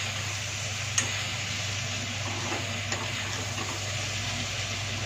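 Wheat-flour pasta and vegetables sizzling in a hot kadhai as a steel ladle stirs and turns them. A few sharp clinks of the ladle against the pan ring out, the loudest about a second in.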